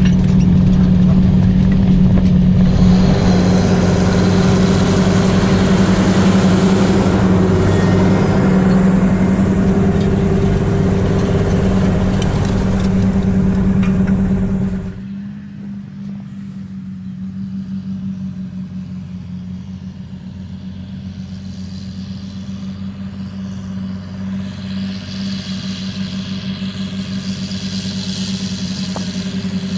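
John Deere 8530 tractor's six-cylinder diesel engine running steadily under load while pulling a seedbed cultivator. About halfway through, the sound drops suddenly to a quieter, more distant level, then slowly grows louder again.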